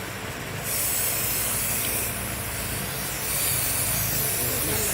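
Two long bursts of hissing spray, each about a second and a half, over a steady low mechanical hum.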